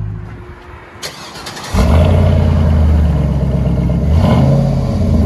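2005 GMC Yukon Denali's 6.0-litre LS V8 idling through a true dual exhaust with a Flowmaster Super 10 muffler, heard at the tailpipe. A quieter stretch gives way suddenly, about two seconds in, to a loud, deep, steady exhaust rumble, which changes briefly about four seconds in.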